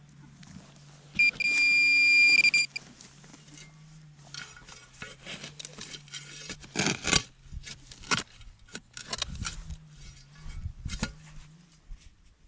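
A metal detector sounds a loud, steady high electronic tone for about a second and a half, signalling a buried target. Scraping and rustling of digging and handling in soil and grass follow.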